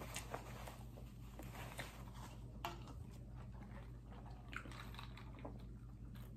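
Faint chewing and small mouth clicks of a person eating rice by hand, then sipping cola through a plastic straw from a glass with ice. A steady low hum runs underneath.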